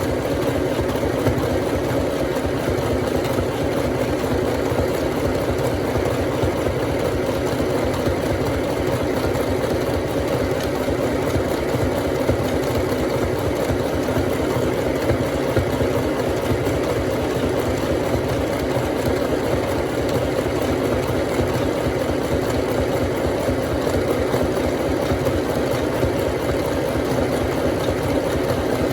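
FHSM-505A sewing machine running steadily at constant speed, a fast, even mechanical rattle.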